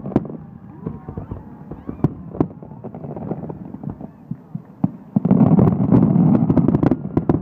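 Aerial firework shells bursting in a display finale: a few separate sharp bangs in the first couple of seconds, then a dense run of rapid-fire bangs and crackle from about five seconds in until shortly before the end.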